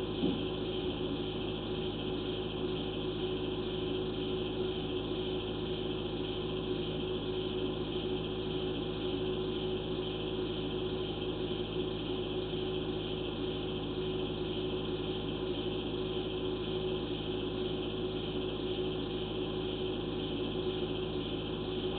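Steady electrical hum and hiss from the sewer inspection camera system, unchanging, with several fixed tones over a low noise floor while the camera head sits parked in the pipe.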